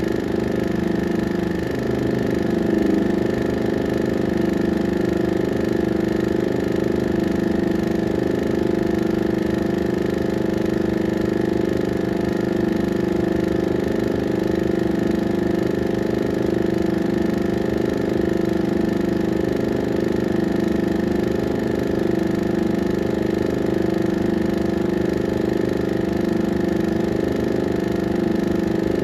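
16mm film projector running: a steady motor hum with a fast, even clatter from the film mechanism underneath.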